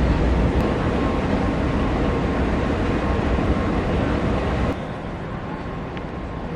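Steady low rumble and hiss of an underground metro station, which falls quieter about five seconds in.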